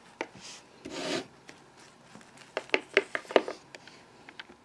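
Plastic toy figures being handled and moved across the toy set: a brief rubbing scrape about a second in, then a quick run of light taps and clicks.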